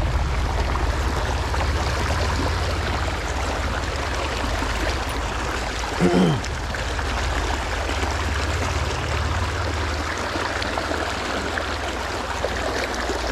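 Flowing river water, a steady rushing stream. About six seconds in a man makes one short vocal sound.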